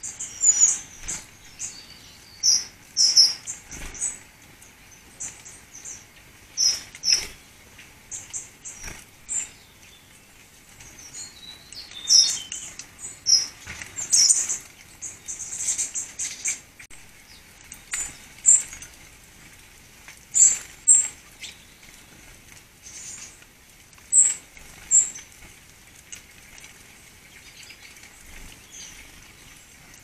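Small garden songbirds giving thin, high-pitched calls: short notes come singly and in quick clusters every second or so, with a few brief falling notes.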